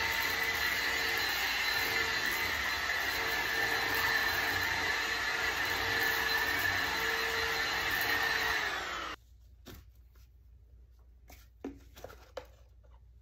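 Bissell ReadyClean cordless 10.8V stick vacuum running over a rug with a steady motor whine, cutting off suddenly about nine seconds in. A few faint plastic clicks and rattles follow as its dust bin is handled near the end.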